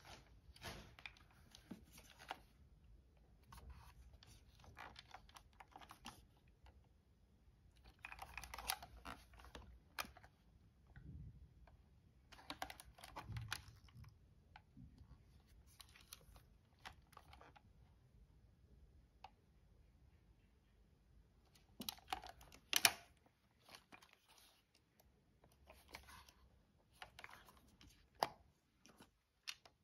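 Hands handling a Super 8 movie camera: faint, irregular clicks and short rustles in scattered clusters, with quiet gaps between, as its controls are worked.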